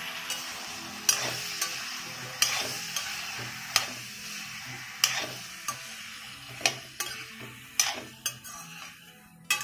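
Metal spatula scraping and knocking against a metal kadai as vegetables are stirred and sautéed in hot oil, about once a second, over a steady sizzle.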